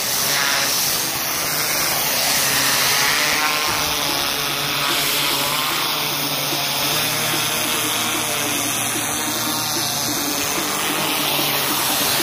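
Pressure washer lance blasting high-pressure water onto a concrete patio: a loud, steady hiss of spray, with the machine's motor running underneath.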